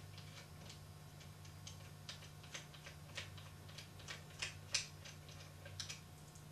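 Light irregular clicks and taps of small metal parts as screws are taken out of a camera support rig's plate by hand, a couple of sharper clicks about four and a half seconds in, over a faint steady hum.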